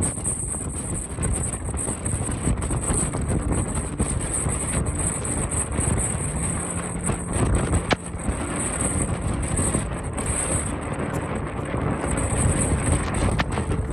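Storm noise: wind buffeting the microphone over a steady hiss of rain, with a sharp click about eight seconds in.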